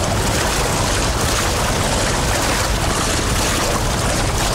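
Steady rushing noise of wind and water, even and unbroken, with no single sound standing out.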